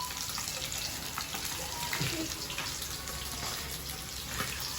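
Fish frying in hot oil in a pan: a steady sizzle with a few faint clicks.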